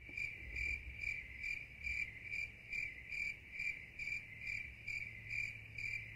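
A cricket chirping steadily, a high-pitched chirp repeated evenly about twice a second, over a faint low hum.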